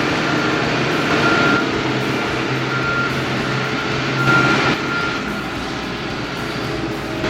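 Heavy earthmoving machine running under load, its backup alarm beeping a single high tone about every second and a half. A louder burst of noise comes about four seconds in.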